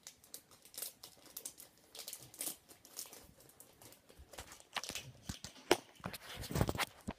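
A foil toy blind-bag packet crinkling and tearing as it is worked open by hand, in many short irregular crackles. Near the end, louder knocks and rustles as the camera is handled.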